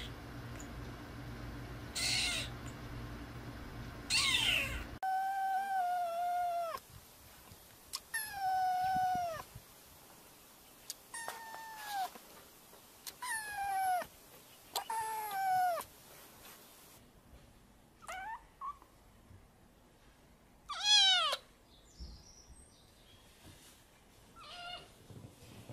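Young kittens meowing over and over: high, thin meows less than two seconds long, most of them dropping in pitch at the end, with short pauses between calls.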